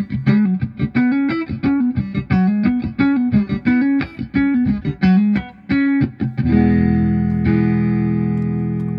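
Electric guitar played through a Vox 846 hand-wired wah pedal at its stock settings: a quick run of single notes in a funky riff, then a chord struck about six and a half seconds in and left ringing.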